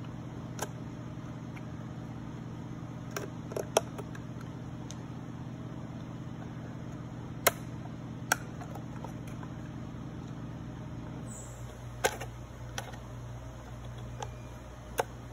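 Laser-cut plywood pegs being pushed into slots in a thin plywood box, giving scattered sharp wooden clicks and taps, a few close together near the start and single ones later. A steady low hum lies underneath and drops away about eleven seconds in.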